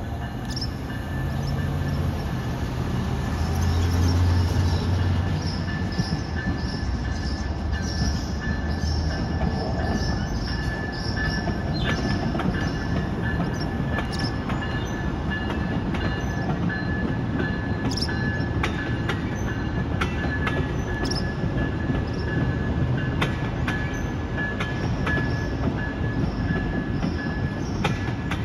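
Amtrak passenger train passing slowly. The diesel locomotive's low engine rumble is loudest about four seconds in, then the cars roll by with a thin, steady wheel squeal and repeated clicks of wheels over rail joints.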